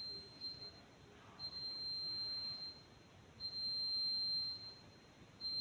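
Fire alarm sounding a steady high-pitched tone in long beeps, each about a second long and repeating every two seconds or so. It shows that a detector under test has been triggered.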